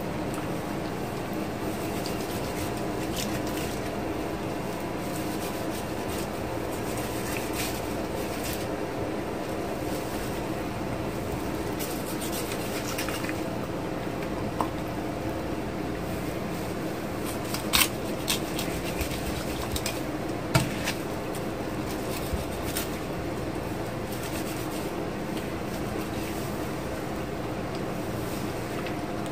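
A steady appliance hum with several fixed tones throughout, and a few sharp clicks and taps of a kitchen knife against a plastic cutting board as a salmon is filleted, mostly in the middle.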